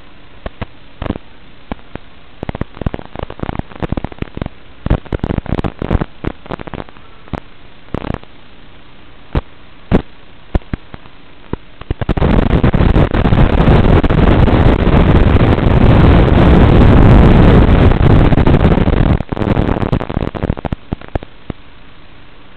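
Static from an analog FPV video receiver's audio channel: a steady hiss with scattered crackles and pops, then a loud rush of static from about halfway through that lasts some seven seconds and breaks off into crackles again. It is the sign of interference and breakup in the radio video link.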